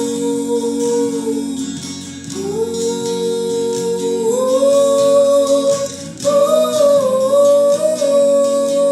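A voice holding long wordless sung notes over acoustic guitar accompaniment, pausing briefly about two seconds in, then stepping up in pitch.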